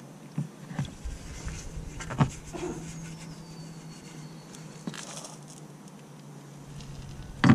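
A few soft clicks and knocks as a plastic cleaner bottle and a paintbrush are handled, over a low steady hum.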